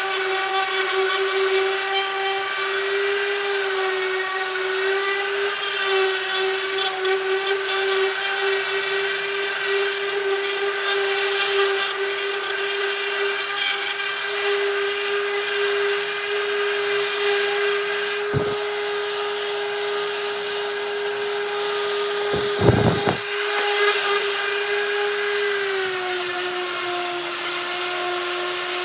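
DeWalt DWE6423 random orbit sander's motor running steadily with a constant whine, its pitch dropping slightly near the end. There are a couple of brief knocks in the middle.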